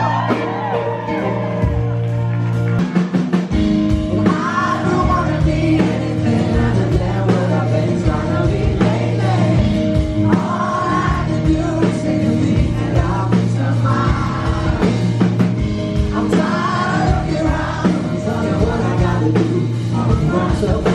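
Live pop-rock band performance: a male vocalist singing in phrases over keyboard and piano, bass, and a drum kit, recorded from the audience.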